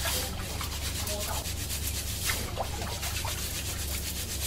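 Hands gently rubbing wet rice grains against each other in a metal bowl, a gritty swishing with a stronger stroke near the start and another about halfway. This is the washing stage that polishes the grains without force so they don't crack. A low steady hum runs underneath.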